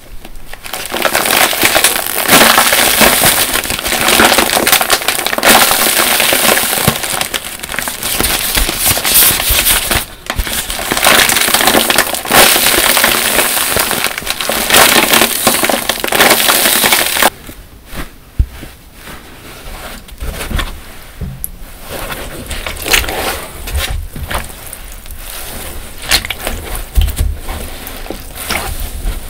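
Plastic shrink-wrap crinkling loudly and continuously as hands grip and rub two large foam car-cleaning sponges. About 17 seconds in it stops abruptly, giving way to quieter, irregular squishing as the soft sponges are pressed down in soapy water.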